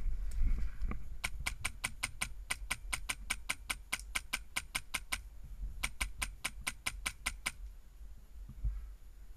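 Airsoft rifle with a Polarstar HPA (compressed-air) engine firing strings of rapid shots, about six a second: one string of about four seconds, a short pause, then a shorter string of about a second and a half.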